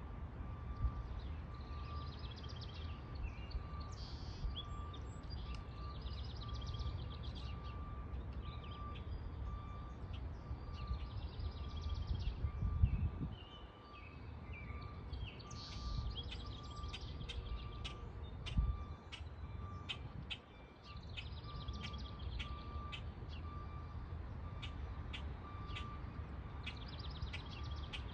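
Small songbirds singing and chirping in short high phrases, with quick sharp chirps coming faster near the end, over a low rumble of wind or handling noise on the microphone.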